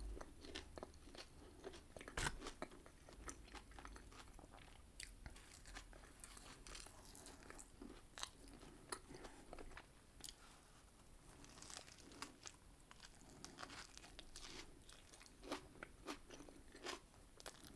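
Close-miked chewing and biting of a KFC Twister wrap, quiet crunches of crispy fried chicken scattered irregularly, with the loudest crunch about two seconds in.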